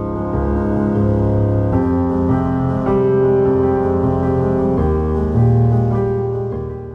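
Background music: slow held keyboard chords that change every second or two, fading a little near the end.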